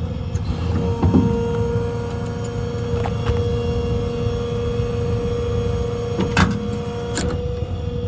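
Hydraulic outriggers on a utility service truck being powered down: a steady hydraulic pump whine over a low engine rumble, with a few sharp metallic clunks.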